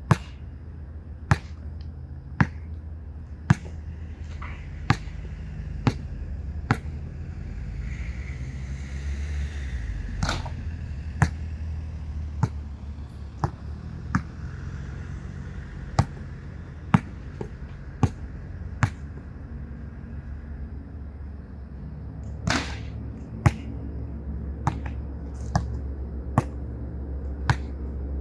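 A basketball bouncing on an outdoor hard court, sharp single bounces roughly once a second. Louder bangs with a short ring about ten seconds in and again past twenty seconds are the ball banking off the backboard and rim. A steady low hum runs underneath.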